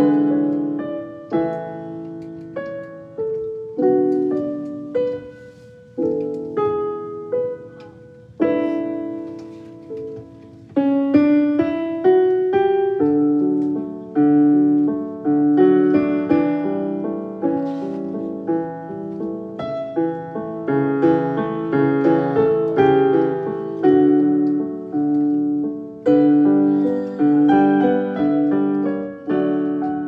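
Solo piano music, note after note struck and fading.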